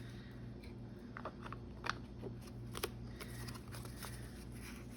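Paper pieces being handled on a work table: light rustling with scattered small clicks and taps.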